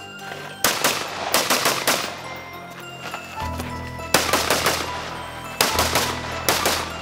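Rifle fired rapidly in quick strings of sharp shots: a run of about half a dozen in the first two seconds, then more shots in small groups after a short pause, over background music.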